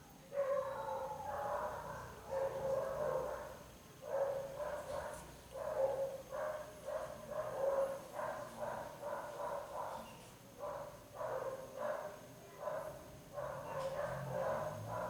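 A dog barking over and over in quick runs, starting about half a second in.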